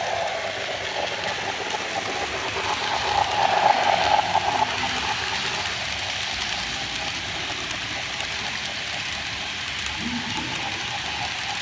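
Model freight train rolling past close by: the steam locomotive model's running gear and the wheels of its flatcars and boxcars running steadily on the track, loudest about three to four seconds in as the train draws level.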